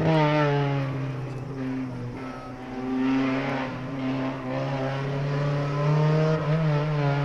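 Honda Civic EG6 Group A touring car's four-cylinder engine running hard on track. The pitch drops as the car passes the camera, then holds a high, steady note as it drives away, rising a little about six seconds in.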